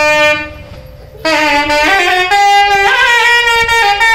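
Sannayi, the South Indian shehnai-type double-reed pipe, playing a folk melody in stepped, held notes. It breaks off about half a second in for a breath and starts again about a second later.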